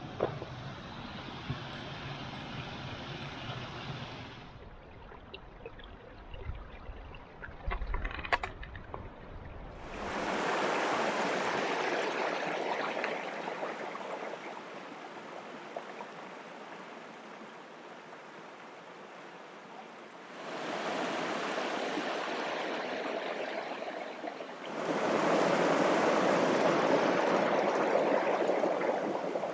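Running water of a mountain stream, a steady rushing that comes in stretches starting abruptly about a third of the way in, again past two-thirds and loudest near the end. Before that, quieter outdoor noise with a few clicks.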